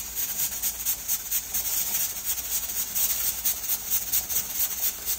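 The weighted pressure regulator on a Denali 23-quart pressure canner jiggling and rattling rapidly on its vent stem as steam hisses out. This is the sign that the canner has reached pressure and the jars are processing.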